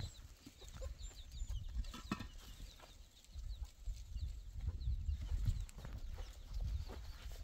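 Birds chirping in short high notes, mostly in the first second and a half, over a low rumble of wind on the microphone. There are a couple of knocks as hollow concrete blocks are set in place.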